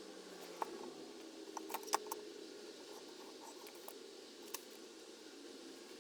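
A few light clicks and taps, the loudest a small cluster about two seconds in and one more near the middle: small hand tools and a wooden blank being handled on a workbench.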